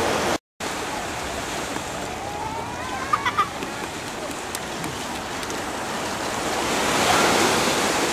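Ocean surf and wind on the beach, a steady rushing noise that cuts out completely for an instant about half a second in.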